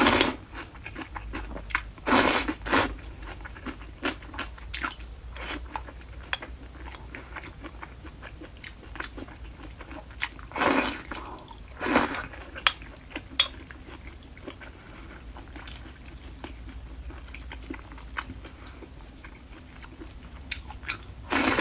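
A person eating close to the microphone: crunchy biting and chewing of noodles and crisp pickles, with many small clicks and a few louder bursts now and then.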